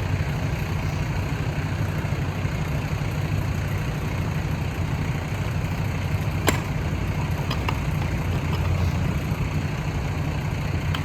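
Fire truck's diesel engine idling steadily, a low even rumble. A single sharp click comes about six and a half seconds in, followed by a few faint ticks.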